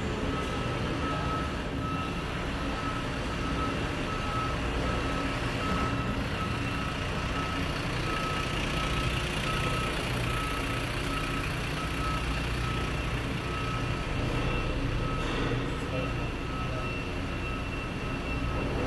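Reversing alarm of a Mercedes-Benz Citaro passenger shuttle bus beeping repeatedly at a steady pace, over the low running of the bus's engine on a ferry's enclosed vehicle deck.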